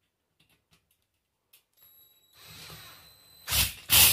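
Cordless drill with a Phillips bit driving a self-tapping screw into the metal frame of a wire-mesh fishing cart. A high motor whine starts about two seconds in, followed by two loud, harsh bursts near the end.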